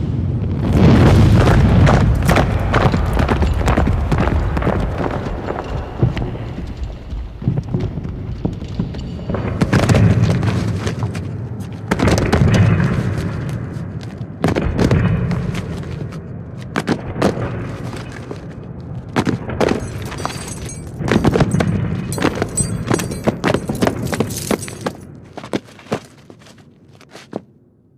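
A dense run of heavy thuds, knocks and rumbling impacts, with music underneath.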